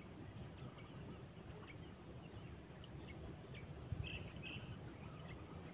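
Faint riverside background: a steady low rumble with scattered faint ticks, a short thump about four seconds in, and two short high calls just after it.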